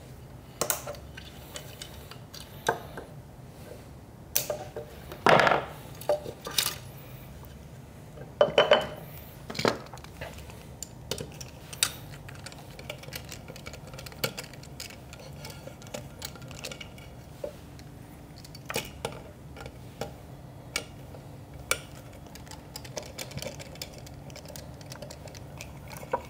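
Scattered metallic clicks and clinks of hand tools working inside an aluminium coffee-grinder base: a screwdriver on screws and wire cutters snipping zip ties. A few louder knocks come about five and nine seconds in.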